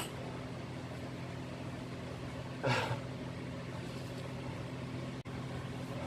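Steady low hum made of a few fixed tones. One short noisy sound comes about three seconds in, and the sound cuts out for an instant near the end.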